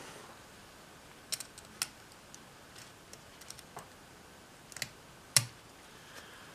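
Pliers bending back the sheet-tin tabs on a Schuco Examico 4001 toy car's chassis: a few small, sharp metal clicks and taps spaced out, the loudest about five seconds in.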